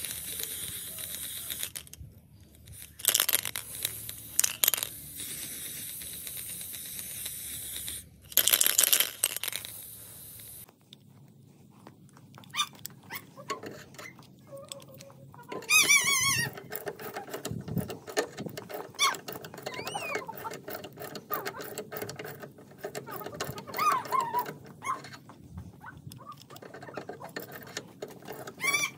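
Aerosol spray paint hissing, with two longer loud bursts. It cuts off suddenly and gives way to rapid metallic clicking and scraping as a handmade sprocket crank turns a car's scissor jack, with a brief warbling squeal about halfway through.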